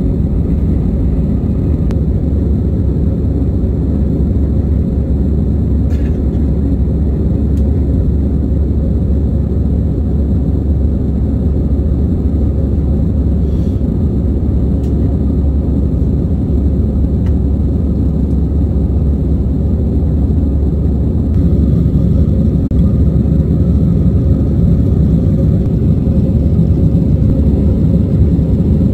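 Steady low rumble of an Airbus A320's jet engines and rushing air, heard inside the passenger cabin, growing a little louder about two-thirds of the way through.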